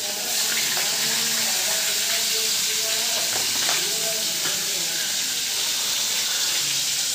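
Steady hissing that runs throughout, with faint voices in the background.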